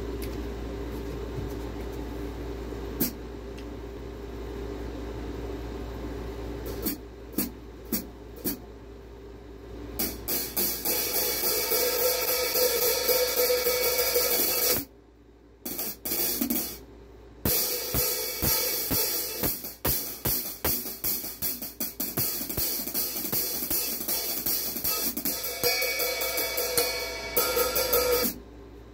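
Soultone cymbals struck with wooden drumsticks: a few single hits about seven seconds in after a steady low room hum, then steady rhythmic playing with a bright, washy ring from about ten seconds in, broken by two short pauses midway and stopping just before the end.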